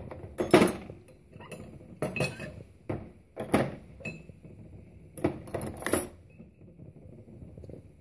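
Metal cutlery, mostly spoons, clinking and clattering as it is dropped into the plastic cutlery basket of a Hotpoint Aquarius Slimline dishwasher, in about six short clatters over the first six seconds.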